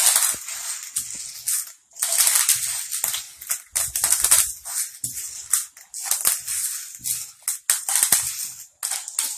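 Green grams (mung beans) being poured into a bottle, the dry seeds pattering and rattling against it in several spurts with short breaks between them.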